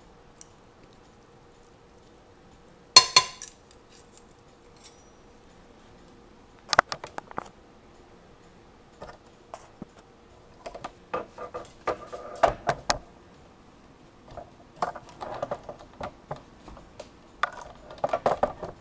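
Serving utensils clinking and scraping against plates and dishes as food is dished onto a plate, in scattered clatters; the loudest clink, with a short ring, comes about three seconds in.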